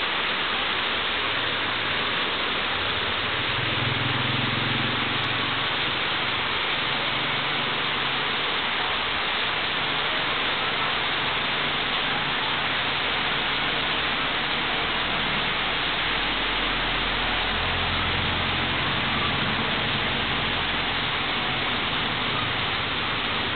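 Heavy rain falling, a steady unbroken hiss with a faint low rumble underneath.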